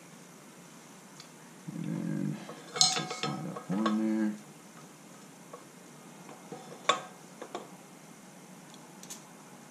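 Metal clinks, knocks and scrapes from a motorcycle's rebuilt front brake caliper being handled and fitted against the fork and brake disc. A cluster of louder knocks comes between about two and four seconds in, and a single sharp clink near seven seconds.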